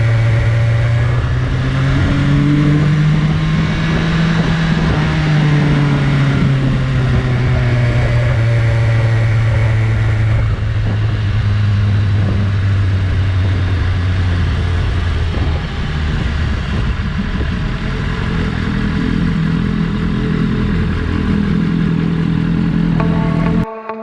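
BMW S1000RR's inline-four engine with its stock exhaust, running at moderate revs, the pitch rising and falling gently several times. About ten seconds in the sound changes abruptly and settles lower and steadier.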